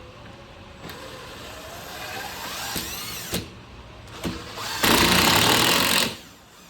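Cordless drill driving a screw into wood: the motor whines up in pitch over a couple of seconds, with a few knocks. About five seconds in a much louder, harsh run of a little over a second follows, ending abruptly as the screw seats.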